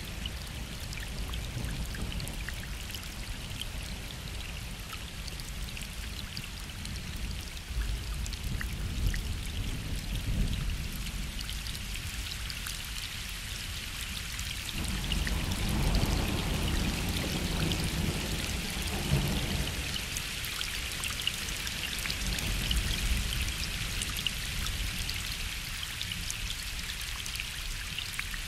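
Steady gentle rain falling onto a lake, with a low rumble of distant thunder rolling for several seconds about halfway through.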